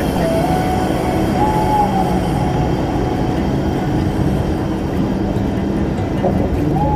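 Steady, fairly loud low rumble of a motor vehicle on the move, with no breaks.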